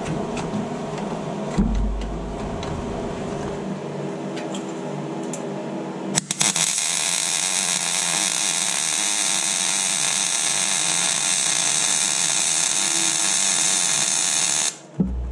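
MIG welder laying a weld on a galvanised steel crossmember: a sharp strike about six seconds in, then a steady crackling hiss for about eight seconds that stops abruptly. Before the weld starts there are only a few faint clicks.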